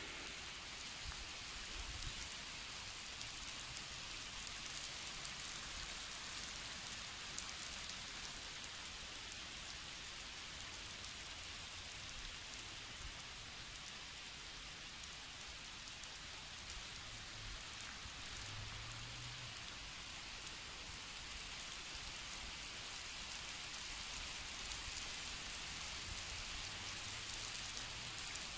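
Steady rain falling on a wet asphalt road and roadside vegetation: an even, unbroken hiss.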